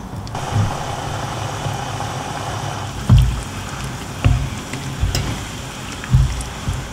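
Mala broth simmering in a wok as a silicone spatula stirs it through the vegetables, with liquid sloshing and four dull thumps of the spatula and pan.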